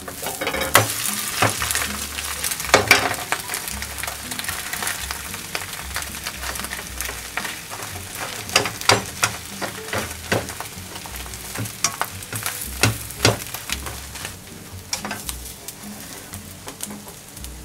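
A thin sheet of beaten egg sizzling in a nonstick frying pan, with a slotted spatula clicking and scraping against the pan as the sheet is turned over and lifted.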